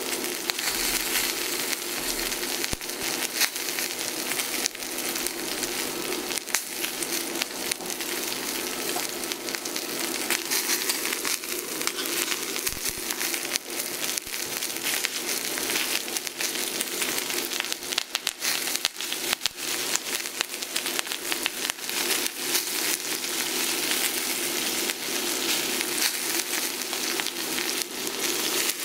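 Dry-aged ribeye steak sizzling in a hot skillet: a steady frying hiss dotted with crackles and pops, with butter going into the pan partway through.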